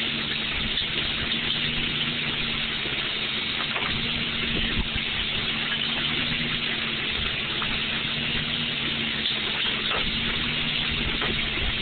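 Steady machinery hum with an even rushing hiss, unchanging throughout.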